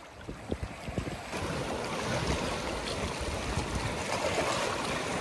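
Ocean surf washing in: a steady rush of waves, after a few soft knocks in the first second.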